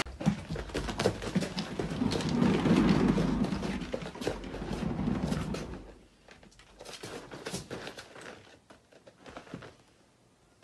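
A cat exercise wheel turning under a cat, with a rough rumble and the patter and knocks of the cat's paws on its carpeted track. The rumble is louder in the first half, then only scattered knocks are left, stopping shortly before the end.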